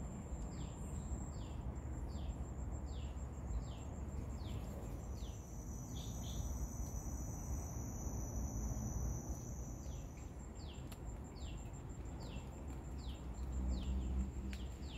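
Garden ambience: a steady, high, pulsing insect buzz with short calls repeating about every three-quarters of a second, pausing for a few seconds midway, over a low steady rumble.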